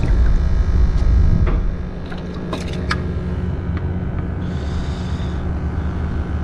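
A steady low outdoor rumble, heavier for the first two seconds, with a few light clicks and taps as a bait bucket and live shrimp are handled.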